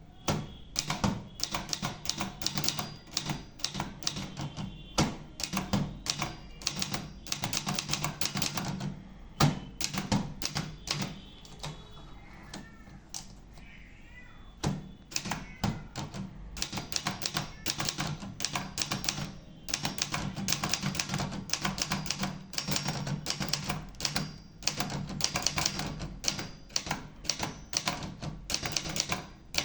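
Brother Charger 11 typewriter being typed on: rapid runs of key strikes that stop for a couple of seconds partway through, then resume.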